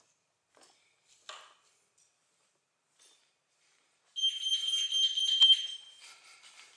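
A shrill electronic alarm tone, steady and high-pitched, sounding for about two seconds starting a little past halfway and then fading out.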